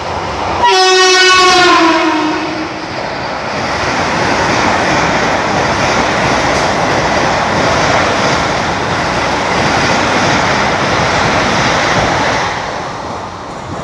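An Indian express train sounding its horn once for about two seconds, the pitch sliding down as it passes, followed by the steady rush and wheel noise of the train going by at speed for about ten seconds, fading near the end.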